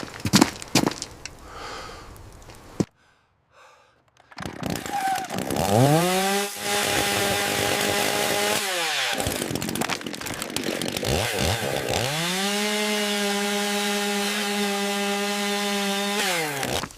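Chainsaw revved up to full speed and held there while cutting wood, twice: each run rises in pitch, holds steady for several seconds, then falls off. A few sharp knocks come near the start.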